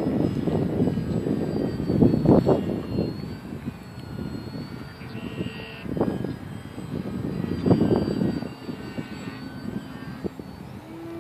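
ParkZone Visionaire RC plane's electric motor and propeller whining in flight overhead, the thin high whine drifting up and down in pitch as the throttle and distance change. Gusts of wind buffet the microphone at times.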